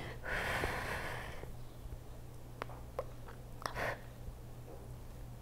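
A person's breathy exhales while working through a hard core exercise: a long one starting just after the beginning and a short one near four seconds, with a few faint clicks between them over a steady low hum.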